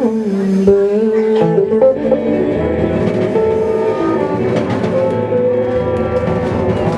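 Live band playing the closing instrumental bars of a song, with guitar and drum kit over sustained held notes.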